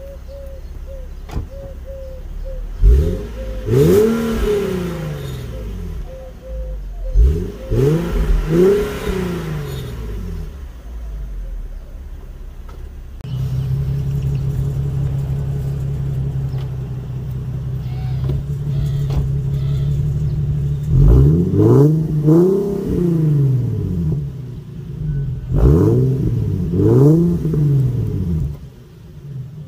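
Infiniti G37's 3.7-litre V6 exhaust, with the mufflers cut out and the original tips kept, idling and revved in short blips, mostly two at a time, four times over. Partway through, the idle steps up to a steadier, higher tone.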